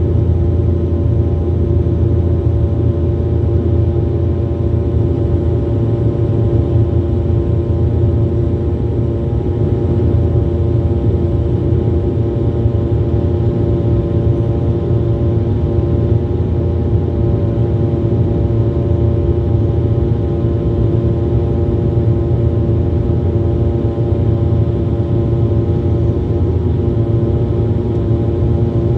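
Jet airliner cabin noise: a steady engine drone over a low rumble, with several fixed tones running through it.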